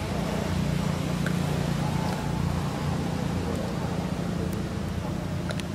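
A motor engine running steadily: a continuous low hum, like a vehicle idling or passing slowly on the road, with a few faint clicks on top.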